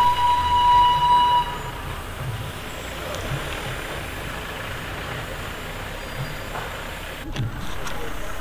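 A high-pitched toot, one steady note held for about two seconds at the start, then the low, steady running of the road vehicle carrying the camera, with road noise and a knock near the end.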